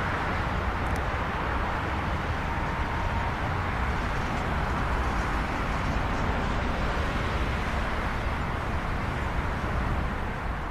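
Steady rushing jet noise from the CFM56 engines of an Airbus A320-214 as it lands, with a heavy low rumble.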